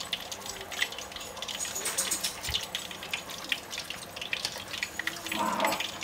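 Cooking oil sizzling in a deep-frying pot: a steady hiss with scattered crackles and pops.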